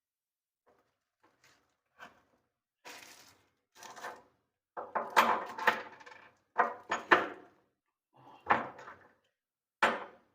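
Metal furniture fittings and a wooden cabinet door being handled: a string of irregular clinks, knocks and short scrapes, the loudest a little past the middle.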